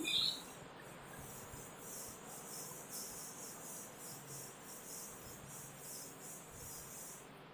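Chalkboard duster wiping chalk off a blackboard: a faint, even run of quick scrubbing strokes that stops shortly before the end.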